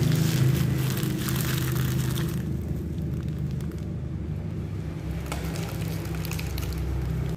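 Clear plastic bags of snacks crinkling as they are handled for the first two seconds or so, then a few faint clicks. All of this sits over a steady low hum that cuts off sharply at the end.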